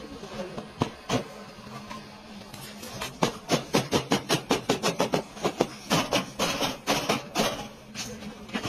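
Hammer striking car-body sheet metal: two knocks, then a fast run of blows at about four a second for several seconds.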